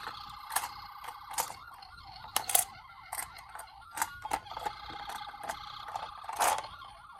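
Toy ambulance electronic sirens playing small, steady wailing tones, broken by several sharp clicks and knocks of the toy cars being handled. The loudest knocks come about two and a half seconds in and again near the end.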